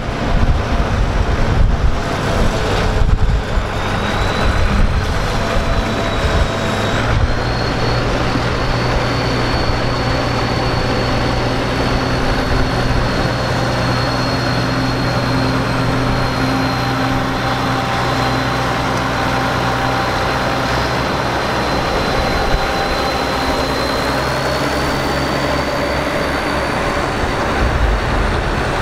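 Allis-Chalmers farm tractor engine running at a steady low speed as it pulls a loaded passenger wagon past, with a thin steady high whine over it. Wind rumbles on the microphone for the first few seconds.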